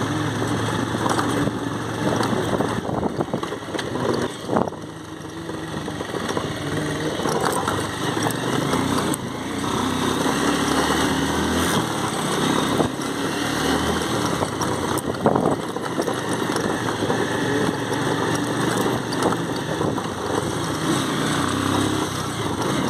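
Motorcycle engine running as the bike is ridden along, heard from the rider's seat; the engine sound dips briefly about five seconds in, then carries on steadily.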